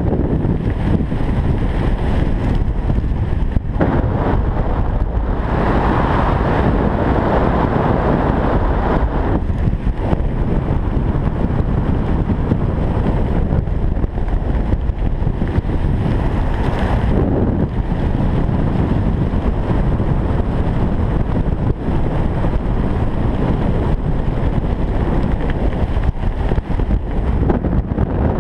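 Wind rushing over a helmet camera's microphone during a parachute descent: a loud, steady rumble with hiss that swells and eases slightly.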